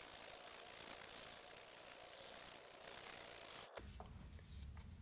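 Sandpaper (180 grit) rubbing over cured JB Weld on a steering knuckle ball, a faint steady scratching that stops abruptly about three and a half seconds in. A few light ticks follow over a low hum.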